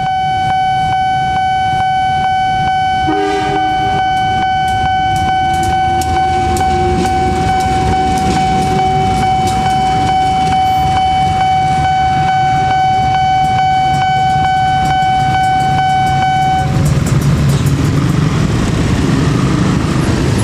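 Railway level-crossing warning signal sounding a steady ringing tone with regular clicks while a train passes, its horn sounding about three seconds in. The warning cuts off about three seconds before the end, leaving the rumble of motorcycle traffic.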